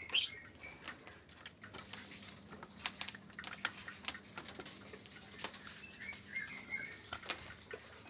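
Lovebirds moving about a wire cage: scattered small clicks and taps, with a brief louder flutter about a quarter second in and a few faint chirps near the end.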